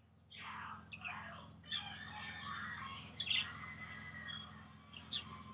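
Small pet parrots chirping and squawking, with sharp calls about a second and a half in, around three seconds in and near the end, and a busy chattering warble in between.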